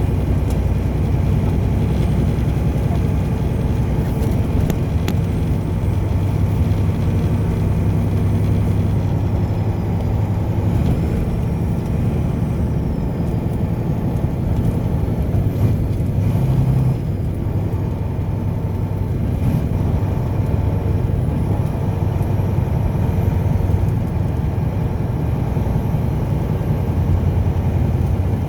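Car driving at a steady pace: a continuous low rumble of engine and tyres on the road.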